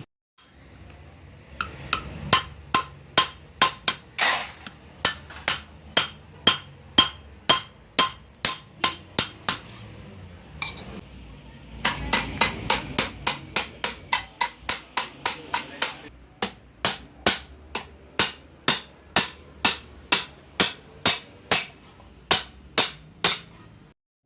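Hand hammer striking copper sheet, a steady run of metallic blows about two to four a second, each with a short ring, broken by a pause of about two seconds midway.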